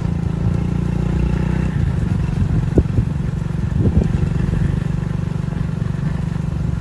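Motorcycle engine running steadily at low speed, with two short knocks about three and four seconds in.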